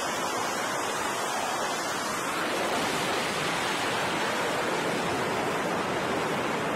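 Steady rushing roar of flight-deck noise on an aircraft carrier, jet engines and wind blended into an even hiss, with no single distinct event.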